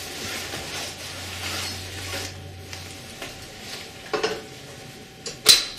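A metal telescopic pipe for a stand dryer being handled over its upright column. There is soft rustling, then a couple of light metal clicks about four seconds in and a louder, sharp metal clink near the end.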